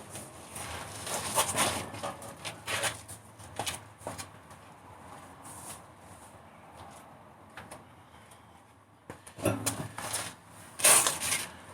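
Scattered knocks, clicks and rustling from someone moving about and handling things, quieter in the middle, with a louder cluster of knocks near the end.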